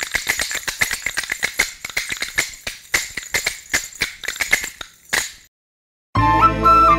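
Rapid, uneven clicking of Dasakathia wooden hand clappers (ramtali), which stops about five seconds in. After a short silence, flute theme music starts near the end.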